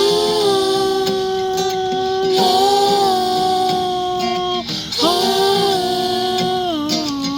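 Female voices singing long wordless held notes: one note sustained for about four and a half seconds, then after a brief break a second phrase that bends down in pitch near the end.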